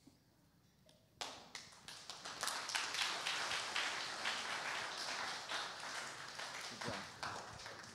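Congregation applauding: many people clapping, starting about a second in, building quickly and then slowly tapering off.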